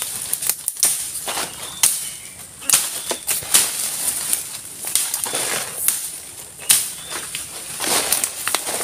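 Footsteps crunching through freshly slashed brush: leaves rustle and twigs and branches snap underfoot in quick, irregular cracks.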